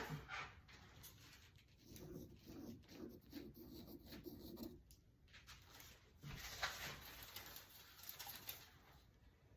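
Near silence with faint scattered small taps and rustles of handling.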